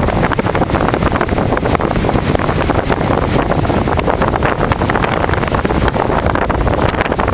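Strong storm wind buffeting the microphone, a steady loud rushing with constant rough crackling gusts.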